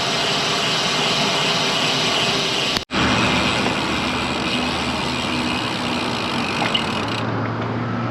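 Steady motor-vehicle traffic noise with an engine hum at a highway junction, cutting out for an instant about three seconds in.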